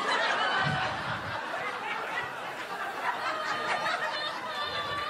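Audience laughing together at a punchline, many voices at once, loudest in the first second and then easing off a little.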